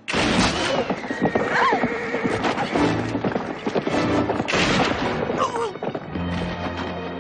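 A sharp loud crack, a revolver shot, opens the sound, and a horse then whinnies several times with its hooves clattering, over background music.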